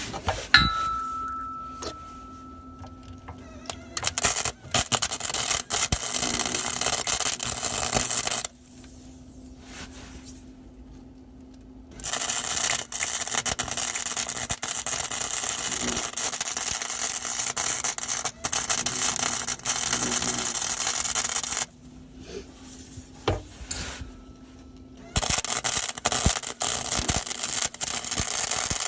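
Wire-feed welder arc crackling and sputtering in three runs, about four, nine and four seconds long, with short pauses between them as a weld is laid on thin car-frame metal.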